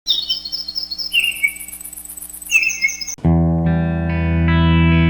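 Bird-like chirping for about three seconds over a faint steady hum, then a distorted electric guitar comes in loud with held chords as a rock song starts.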